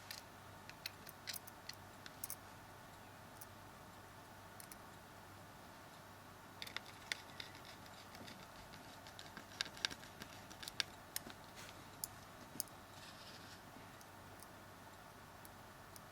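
Faint, scattered clicks and taps of a small Phillips screwdriver and tiny screws being handled and driven into a Samsung Galaxy S3's plastic frame, coming in irregular clusters, with a short scrape late on.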